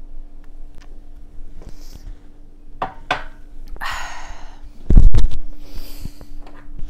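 Wet sphagnum moss being handled and wrung out over a plastic tub, with rustling, scattered clicks and knocks, and water running out of the squeezed moss about four seconds in. About five seconds in there is a loud dull thump.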